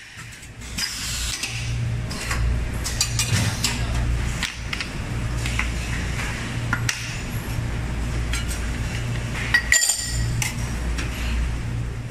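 Metal keychain mould plates and a metal strip handled on a workbench, giving scattered metallic clinks and knocks, the sharpest a little before and around ten seconds in. Under them runs a steady low machine hum.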